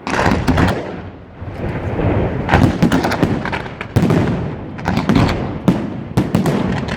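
Fireworks display going off: a dense run of bangs and crackling reports, with a fresh loud volley about every one to two seconds.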